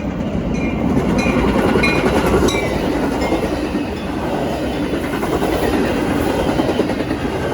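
A train passing close by: the steady noise of its wheels running on the rails, with a few short high squeaks in the first few seconds.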